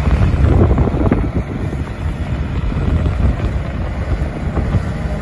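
A muddy toy wheel loader being washed: continuous, irregular splashing and scrubbing noise.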